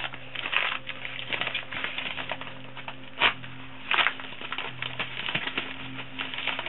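Paper padded envelope crinkling and rustling as it is slit and pulled open with an Opinel No. 6 folding knife, with two louder rasping cuts or rips about three and four seconds in.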